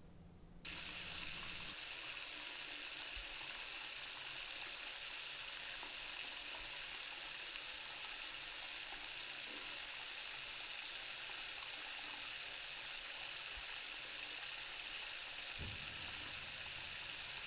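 A steady hiss, like sizzling, that switches on abruptly less than a second in and then holds level, strongest in the high range.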